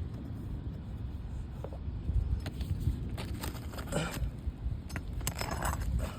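Scattered light clicks and scrapes of small hard parts being handled, over a low rumble.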